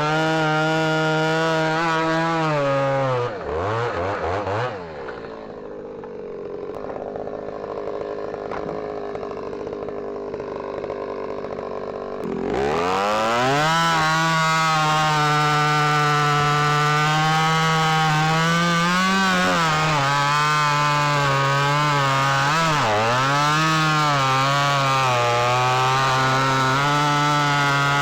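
Ported and piped Stihl MS310 two-stroke chainsaw with a 28-inch bar, running at high revs, then dropping to idle about three seconds in. Around twelve seconds in it revs up again and runs at full throttle through cherry slabwood, its pitch dipping now and then as the chain loads in the cut.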